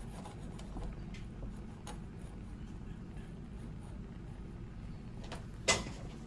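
Lit Bunsen burner running with a low, steady rumble, and one sharp knock near the end as the burner is shifted on the benchtop.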